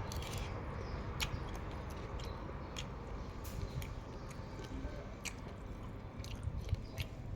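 A person chewing a mouthful of crispy pork belly and Chinese kale, with irregular crunches and wet mouth clicks.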